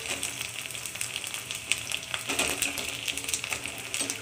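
Koozh vathal (homemade rice-flour fryums) deep-frying in hot oil: a dense, steady crackling sizzle, with a few sharper pops and clicks through it.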